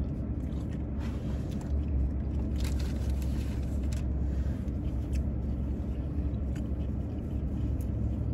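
Steady low hum of a parked car's engine idling, heard from inside the cabin, with faint clicks of chewing and light handling noises over it.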